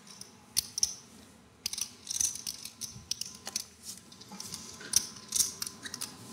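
Poker chips clicking against one another as players handle and shuffle their stacks at the table, in irregular clusters of sharp clicks.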